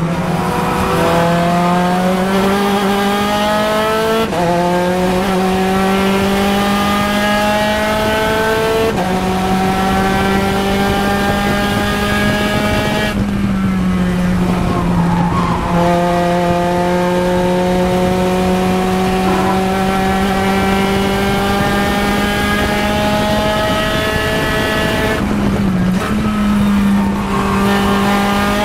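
Spec Racer Ford Gen3's four-cylinder engine at race pace, heard from the cockpit: climbing in pitch as it pulls through the gears with upshifts about 4 and 9 seconds in, falling away around halfway as the car brakes and downshifts, then pulling up again with another shift near the end.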